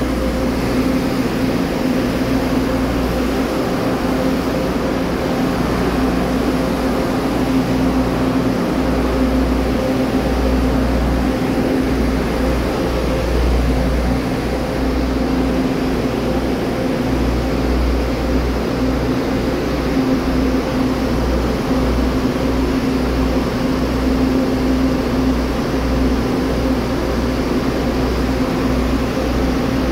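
Taiwan Railway DR1000-series diesel railcar idling at the platform: a steady engine rumble that swells and dips, under a constant hum.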